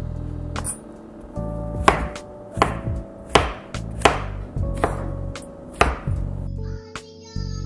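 Large chef's knife chopping large mushrooms on a wooden cutting board: about six firm strokes, roughly one every 0.7 s.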